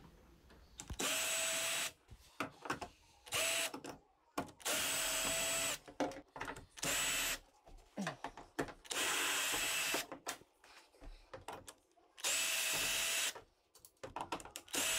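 Cordless drill/driver running in short runs of about a second each, about seven times, at a steady pitch, backing out the screws that hold a washer's front panel, with small handling clicks between the runs.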